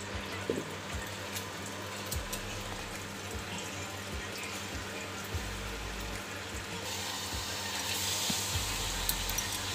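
Water poured and splashing onto an earthenware lid covering a pitha cooking in a hot clay kadhai, starting about seven seconds in. Before that there is a low steady hum with a few small knocks of clay on clay as the lid settles.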